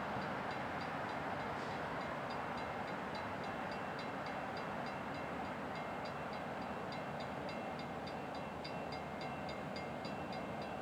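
CSX freight train rolling steadily, with a fast, regular high clicking of about three a second and a faint steady high squeal over the running noise.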